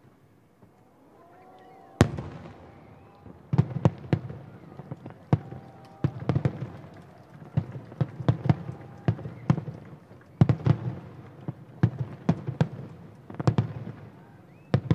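Aerial firework shells bursting: a single sharp bang about two seconds in, then from about three and a half seconds a rapid, irregular barrage of booms, often several in quick succession.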